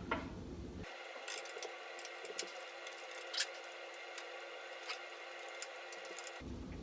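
Faint scattered clicks and ticks of screws being turned by hand into wood, over a faint steady hum.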